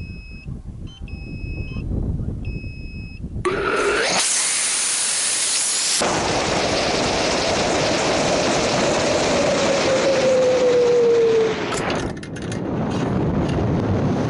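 On-board audio from a high-power rocket. A few two-tone electronic beeps sound on the pad, then about three and a half seconds in the rocket motor ignites with a sudden loud roar that runs through the climb, with a tone slowly falling in pitch. About twelve seconds in the roar drops away, as at motor burnout, leaving a few clicks and air rushing past the airframe.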